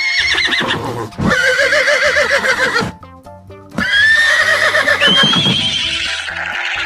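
Horse whinnying, several long calls with a shaking pitch and a brief pause in between, over background music.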